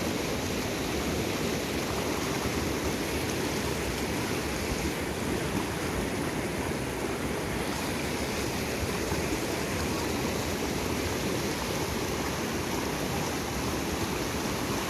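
Fast mountain river rushing over boulders and through rapids: a steady, unbroken wash of water.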